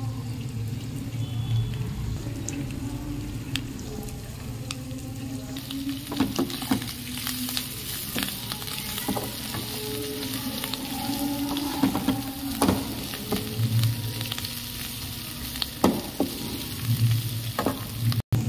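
Potato pieces sizzling in hot oil in a pan. From about six seconds in, a perforated metal spatula stirs them, scraping and clicking against the pan, and the sizzle grows brighter.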